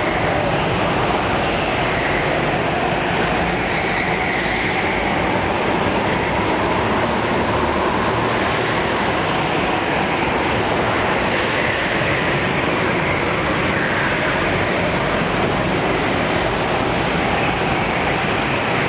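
Several go-kart engines running together as the karts race round an indoor track, a steady dense drone whose pitch swells and fades as karts accelerate and pass. The hall adds a reverberant wash.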